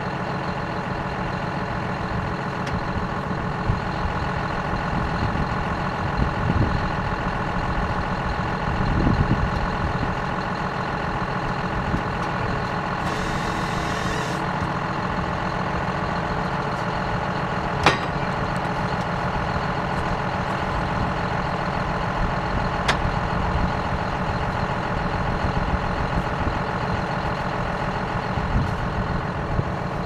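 John Deere 6170R tractor's diesel engine idling steadily, swelling slightly about nine seconds in. A short hiss comes about a third of the way through, and two sharp clicks come later.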